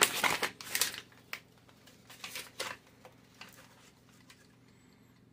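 Crinkling and tearing of a refrigerated biscuit can's spiral-wound cardboard and paper wrapper as the split tube is pulled apart. The crackles are thickest in the first second, come in a few sparser bursts up to about three seconds in, then stop.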